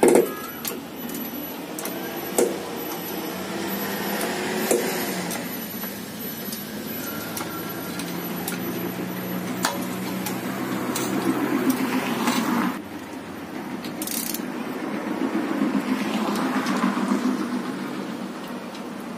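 Road traffic going by: vehicles swell and fade one after another, with a few sharp clicks. The sound drops suddenly about 13 seconds in.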